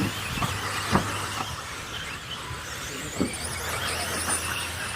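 1/10-scale electric off-road RC buggies racing, their motors giving a high-pitched whine that rises and falls with throttle, with a few short knocks.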